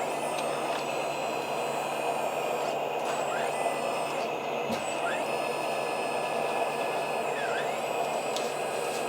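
Electric hydraulic pumps of a 1/10-scale RC D11 bulldozer running steadily, a constant mechanical whir, as the hydraulic cylinders tilt the front blade.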